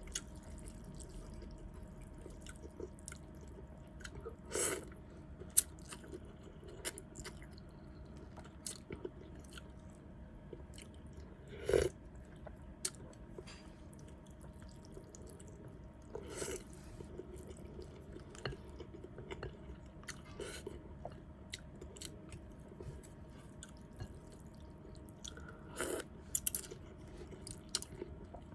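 Close-miked chewing of noodle soup, with many small wet mouth clicks and four louder half-second mouth sounds, the loudest about twelve seconds in.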